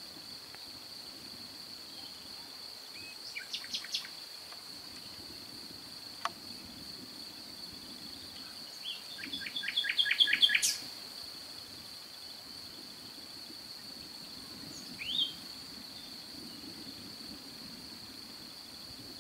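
Birds calling over a steady high-pitched chirring of crickets. A few short chirps come about three seconds in, then a quick run of about eight sharp notes around ten seconds in, and a single rising note near the end.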